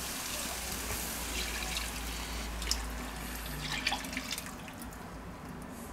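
Vegetable broth poured from a measuring jug into a frying pan of braised pumpkin and onion: a steady splashing pour into the pan that thins out over the last second or two.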